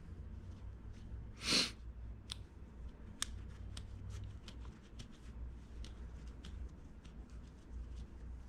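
Small clicks and light scraping of a door jamb switch's small parts being handled and wiped clean of corrosion, with one short, louder hiss about a second and a half in, over a low steady hum.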